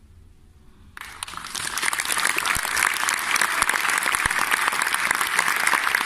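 Audience applause: after a quiet first second it breaks out suddenly, builds quickly and holds as steady, dense clapping.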